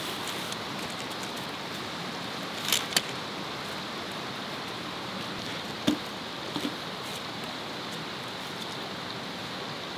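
Steady rush of a nearby creek and small waterfall, with a few sharp clicks and knocks of camping gear being handled: a pair about three seconds in and another pair about six seconds in.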